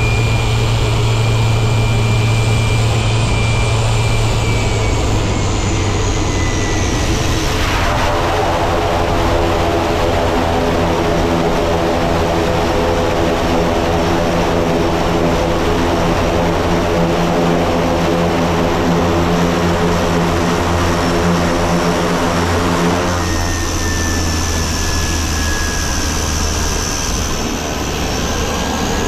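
Quest Kodiak's PT6A turboprop running at taxi power, with a steady low propeller drone and a high turbine whine. The whine slides down in pitch about 5 s in. A buzzier, many-toned propeller note takes over from about 8 s to 23 s. Then the whine comes back and rises near the end.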